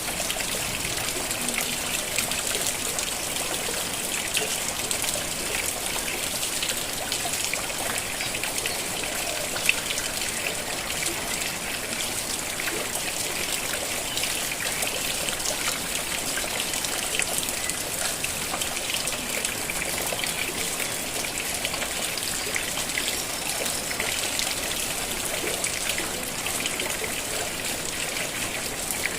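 Steady rain falling, with dense fine drop ticks and water trickling and running off, and one sharp tap about ten seconds in.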